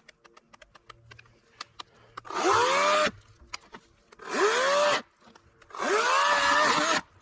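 EGO cordless electric chainsaw cutting through a log in three short bursts, its motor pitch rising as each burst starts. This is the last of a cut that has not quite parted the log.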